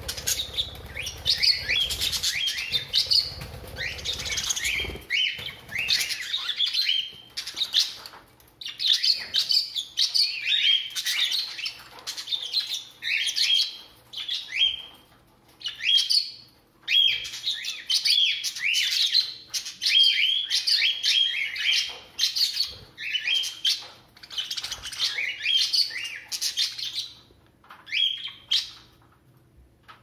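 Several budgerigars chirping in quick runs of short, varied notes, the runs broken by brief pauses.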